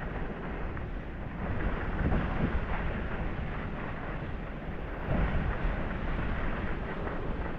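Skis sliding over groomed snow, with wind buffeting the microphone. It swells louder about two seconds in and again about five seconds in.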